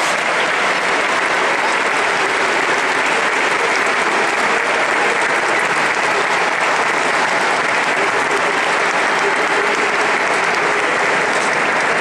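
Audience applauding steadily: a dense, sustained ovation at the close of a band and choir piece.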